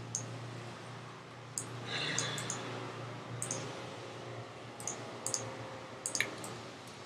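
Computer mouse clicks, scattered and irregular, some in quick pairs, over a low steady hum.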